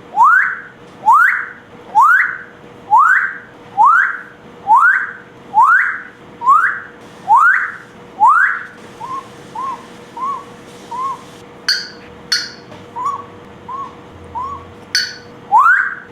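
Pet parrot whistling: a rising whistled note repeated about once a second, around ten times. It then switches to shorter, softer chirped whistles with a few sharp high squeaks, and gives one more rising whistle near the end.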